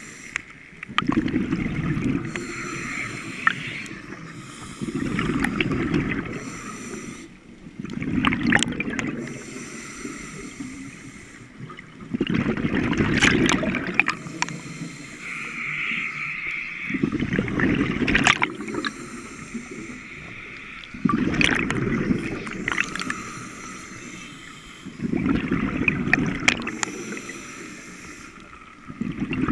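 Scuba diver breathing through a regulator underwater: a hiss on each inhale and a rush of exhaled bubbles, repeating about every four seconds, with occasional sharp clicks.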